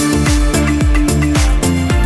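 Background music with a steady dance beat: deep kick drums that drop in pitch, with crisp high percussion on top.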